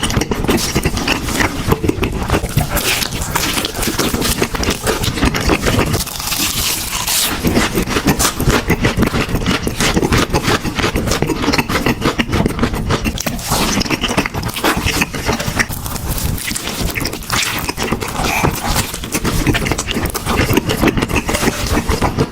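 Close-miked eating sounds: steady chewing, with wet mouth clicks and crunching.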